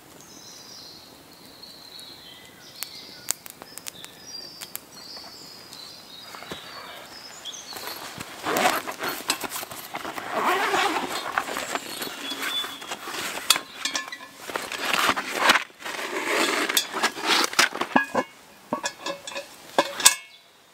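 A padded carry bag is unzipped and its fabric rustles as it is opened, with many small clicks. Then a cast iron Dutch oven is lifted out by its wire bail handle and set down on a log with a knock near the end. The first few seconds are fairly quiet.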